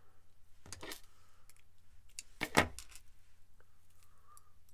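Chainmail of blackened stainless steel rings jingling as it is handled, with a short jangle just under a second in and a louder one about two and a half seconds in, and faint metal clicks in between.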